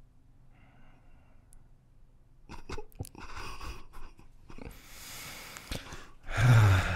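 Faint low hum, then clicks and rustling close to the microphone from about two and a half seconds in, and a short, loud, breathy vocal sound near the end.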